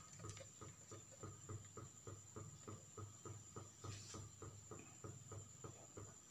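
Near silence: room tone with a faint, regular ticking, about four ticks a second.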